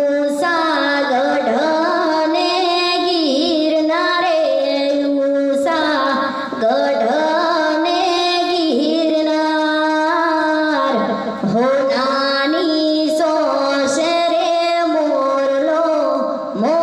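A woman singing a Gujarati song solo into a handheld microphone, in long held notes that slide and waver in pitch, with a few short breaks for breath.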